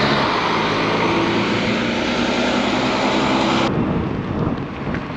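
Loud, steady engine drone with a rushing noise over it, cutting off abruptly about three and a half seconds in. A quieter rumble follows.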